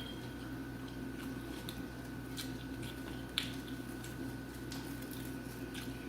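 Eating sounds: soft chewing and small wet mouth clicks, with one sharper click about three seconds in, over a steady low hum.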